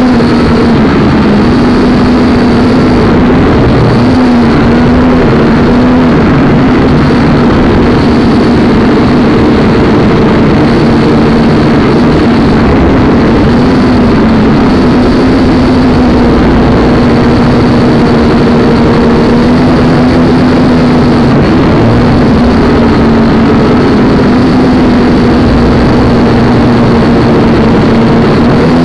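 Brushless motors and propellers of a 250-size FPV racing quadcopter, heard through its onboard camera's microphone: a loud, steady buzzing whine whose pitch dips and recovers slightly with throttle changes.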